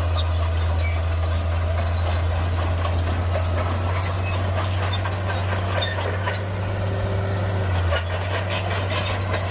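Heavy diesel engine of earthmoving machinery running steadily with a deep, even drone, with scattered light clicks and clanks over it.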